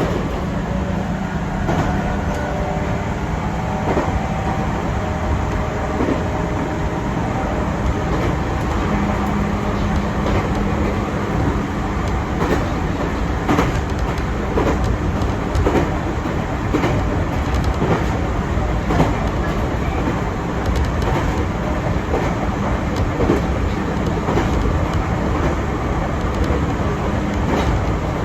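Chichibu Railway 6000 series electric train running, heard from inside the carriage: a steady rumble with the clack of wheels over rail joints every second or two.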